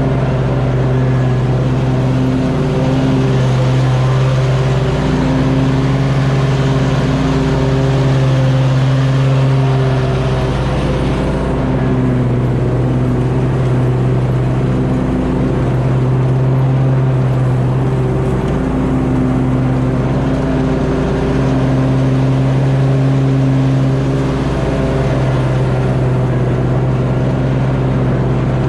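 Simplicity Courier zero-turn riding mower's engine running steadily under load while mowing, its pitch wavering slightly, with a hiss that drops away about a third of the way through.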